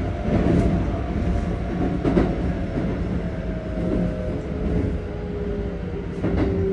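Keikyu 1500-series train's Toyo GTO-VVVF inverter and traction motors heard from inside the car as it slows: a whine that slowly falls in pitch over the rumble of the wheels, with a few wheel clicks over rail joints.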